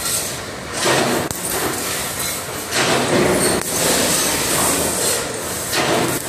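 CNC laser cutter cutting stainless steel sheet: a loud hissing noise that swells and drops back in bursts a second or two long.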